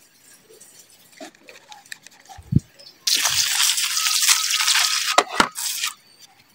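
Hand-held pressure sprayer spraying a jet of water onto potting soil: a steady hiss lasting about three seconds, starting about three seconds in and cutting off shortly before the end, with a low thump just before it starts.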